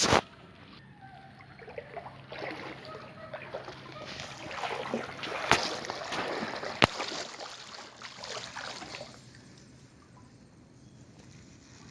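Floodwater splashing and sloshing irregularly for several seconds, with two sharp knocks near the middle, over a faint steady hum.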